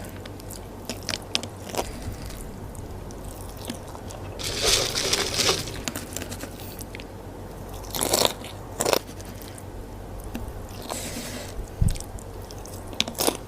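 Close-up eating sounds of a person chewing and crunching crispy potato topping (kriuk kentang) with rice and dendeng. There is a longer run of crunching about a third of the way in, and a few sharp crunches later.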